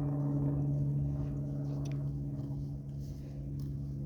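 Steady low-pitched hum, with a faint click about two seconds in.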